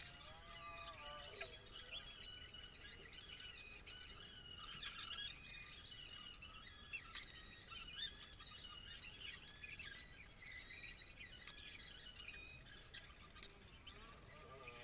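Faint birds chirping and twittering throughout, with a few soft clicks and crinkles of seasoning sachets being squeezed.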